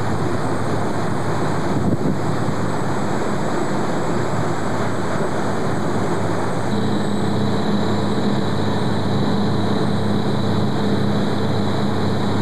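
Sport-fishing boat running at speed: a steady engine drone under the rush of wind and wake. About seven seconds in, a steady engine tone comes through more clearly.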